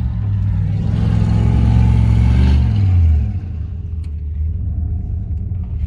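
Hummer H2's 6.0-litre V8 revved hard for about three seconds, then dropping back suddenly to a low rumble, as the truck tries to power out of soft sand.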